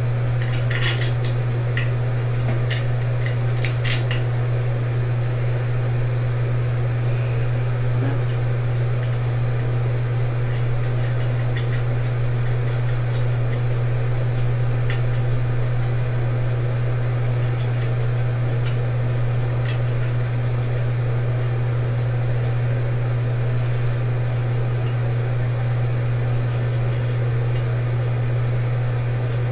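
A steady low hum, with a few light plastic clicks and taps in the first four seconds and a scattered few later as toilet flush-valve parts are handled and fitted.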